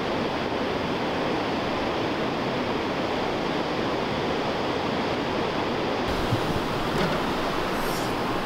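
Ocean surf washing steadily over a rocky shore. About six seconds in, the sound changes: a low wind rumble on the microphone joins, with a couple of light knocks.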